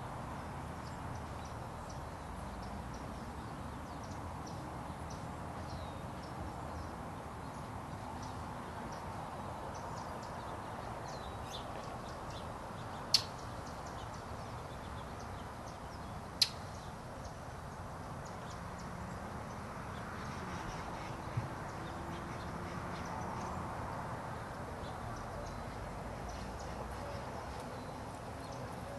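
Many faint, short, high bird chirps scattered over a steady low background rumble. Two sharp clicks about three seconds apart near the middle are the loudest sounds.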